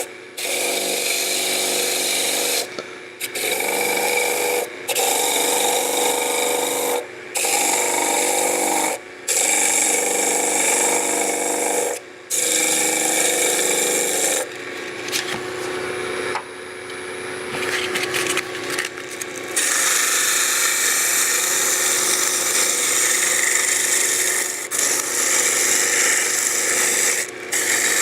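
180-grit sandpaper held against wood stock spinning on a lathe, a steady rasping hiss that breaks off briefly every two seconds or so for the first twelve seconds, then runs on steadily. The piece is being sanded down to size.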